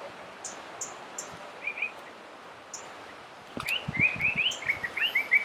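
Wild birds calling: a few scattered short chirps, then a quick run of short rising chirps from about three and a half seconds in. A few low thumps come with the start of that run.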